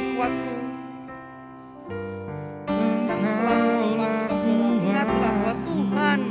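Slow worship song: sustained piano or keyboard chords that fall quieter about a second in, then swell again near the three-second mark as a voice sings over them.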